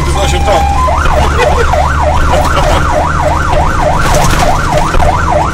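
Fire engine's electronic siren on an emergency run: a steady tone for under a second, then a fast yelp warbling up and down about three times a second. A low engine drone runs underneath.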